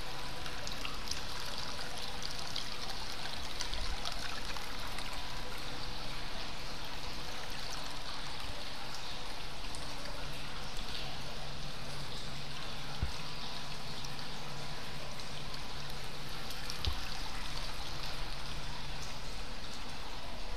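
Hot-spring water pouring steadily from a spout into a bath tub: a continuous splashing trickle.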